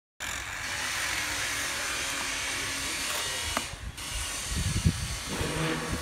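Construction-site background noise: a steady hiss, joined about four seconds in by irregular low thumps and knocks.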